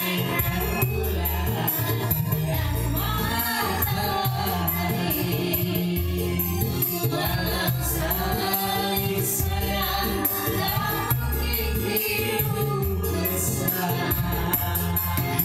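Live dangdut music: a woman singing into a microphone over a steady beat and bass line.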